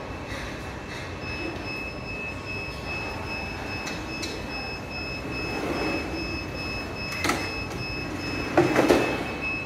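Warehouse tote-handling robot's telescopic fork arm sliding a plastic tote off a conveyor onto its tray. The mechanism gives a steady high-pitched whine, with a few clicks and a louder clatter near the end.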